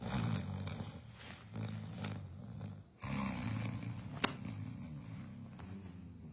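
Loud, rough human snoring: one long snore from the start, and after a brief gap another long one from about three seconds in. Two sharp clicks are heard in between, the louder one a little after four seconds.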